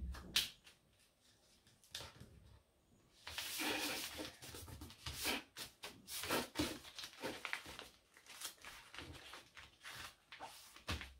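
Thin paper being folded and creased by hand: rustling, sliding and rubbing along the folds. It is loudest for about a second some three seconds in, followed by a run of short scrapes and crinkles.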